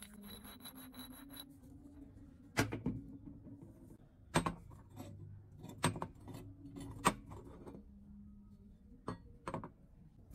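A steel sleeve rasps as it slides over a round steel bar, then several sharp metal-on-metal clinks and knocks as the bar and a heavy steel block are handled and set down.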